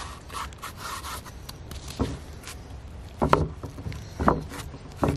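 Gloved hands rubbing a pepper rub into a raw tomahawk steak on a wooden cutting board: soft, irregular scraping and rubbing of meat and spice against the wood, with a few dull thuds as the heavy bone-in steak is pressed, lifted and set back down on the board.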